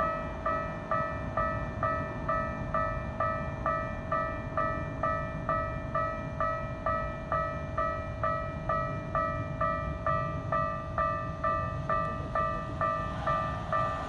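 Japanese railway level-crossing warning bell ringing in an even, steady run of electronic dings, a little over two a second, signalling an approaching train. Near the end the running noise of the oncoming train starts to come in under the bell.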